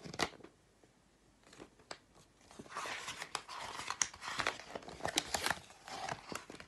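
Pages of a large picture book being handled and turned: a couple of clicks at the start, then a few seconds of paper rustling and crinkling with small clicks from about halfway through.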